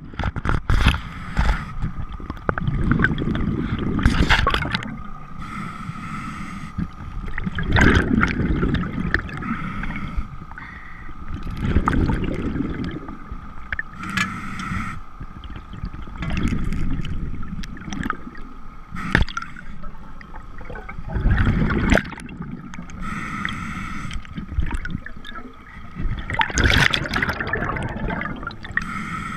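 Scuba diver breathing underwater through a regulator: a hiss on each inhale and a rumble of exhaled bubbles, repeating about every four to five seconds, with scattered sharp knocks.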